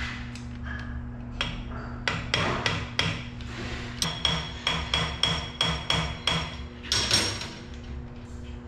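Metal tool knocking and clinking on an in-line diesel injection pump: a run of sharp, ringing knocks, about three a second for a few seconds mid-way, with scattered knocks before it and a louder one near the end. A steady low hum runs underneath.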